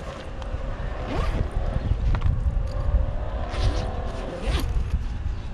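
Scraping and rustling handling noises over a steady low rumble.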